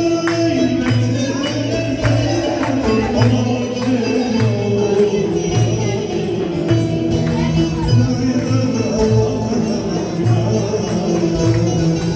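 Live Turkish folk dance music: a bağlama playing the tune over a steady beat of hand percussion, about two strokes a second.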